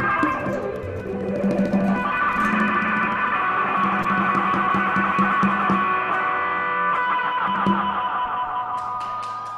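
A band playing live, with electric and acoustic guitars holding sustained chords over a repeating low note. The music dies away over the last second or two.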